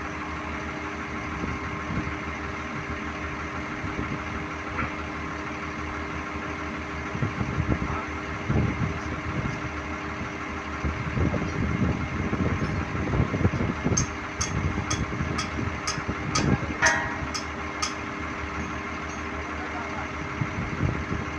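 Steady machinery drone with a few held tones. Near the end comes a run of about nine sharp clicks, roughly two a second, with muffled voices in the middle.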